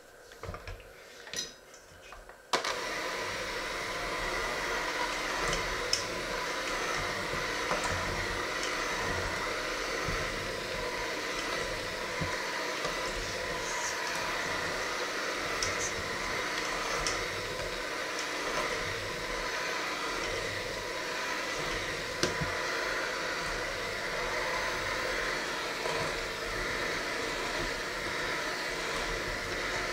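Electric hand mixer switched on about two and a half seconds in after a few handling knocks, then running steadily with a motor whine as its beaters work a flour mixture in a stainless steel bowl, with a few light clicks.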